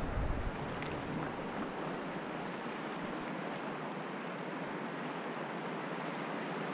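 Steady rushing of river water around an inflatable boat, an even wash of current noise, with a brief low rumble right at the start.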